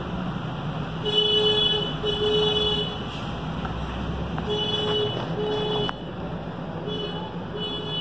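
A horn sounding in short double toots, three pairs a few seconds apart, over a steady background rumble.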